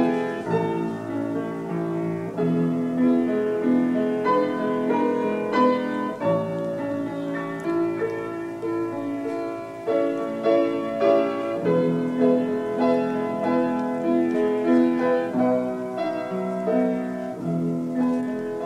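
Solo piano playing, with notes held and layered into chords.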